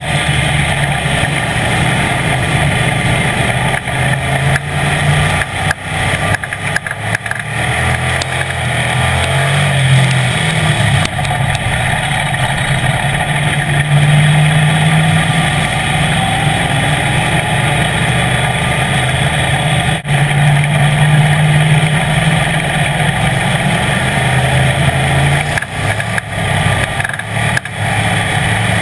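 Street stock race car's engine under racing throttle, heard from inside the cockpit. Its note rises and falls over and over as the driver accelerates and lifts, over a constant rush of noise.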